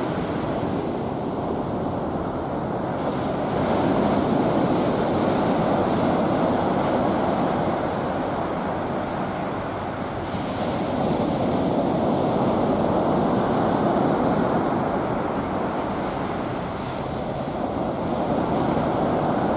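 Ocean surf washing onto the shore in a continuous rush, swelling each time a wave breaks, about every six or seven seconds.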